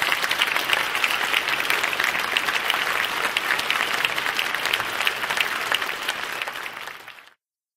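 A crowd applauding, many hands clapping at once, dying away and then cutting off abruptly near the end.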